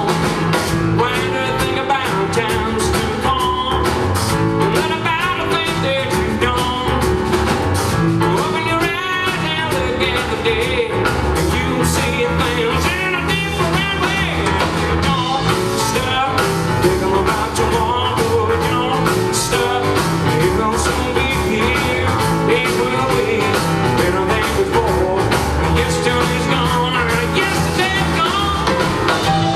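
Live blues-boogie trio playing an instrumental passage between verses: piano, upright double bass and drum kit, at a steady rock-and-roll beat.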